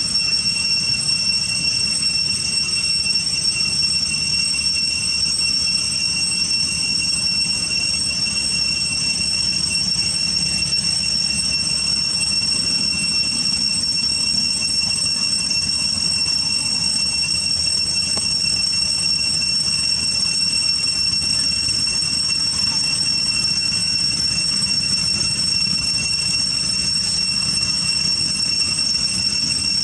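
A steady, high-pitched insect drone in one unbroken tone, over a low steady rumble.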